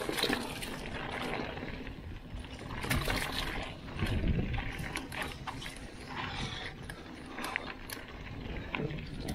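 Mountain bike descending a dirt and leaf-covered trail: a steady rush of tyres on the ground, with the bike's parts rattling and clicking sharply over rough ground and rocks.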